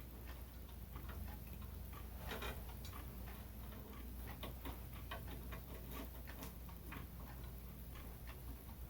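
Irregular small clicks and crackles of electrical wires being twisted together under a plastic wire nut, over a faint low hum.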